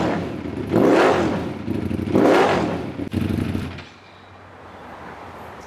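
Ducati Panigale V4's Desmosedici Stradale V4 engine being blipped on the throttle three times, roughly a second apart. The engine then goes quiet about four seconds in, as if switched off.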